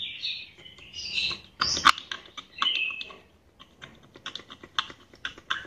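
Irregular small clicks, taps and scrapes of a multimeter test probe and fingers against a circuit board while its tracks are probed for a break, with one louder click about two seconds in.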